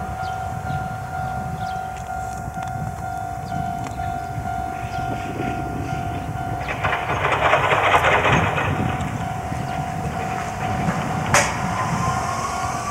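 Railway warning sound ringing as a steady high tone over a low rumble while a train approaches unseen. A rougher burst comes about two-thirds of the way in, a sharp click near the end, then a slowly rising whine begins.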